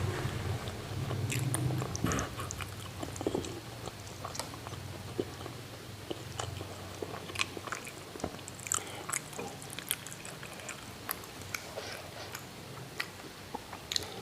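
Close-miked chewing and biting of siomay and bakso tahu (Indonesian steamed fish dumplings and stuffed tofu): soft, wet mouth sounds with many small irregular clicks and smacks. A low hum sits underneath for the first two seconds.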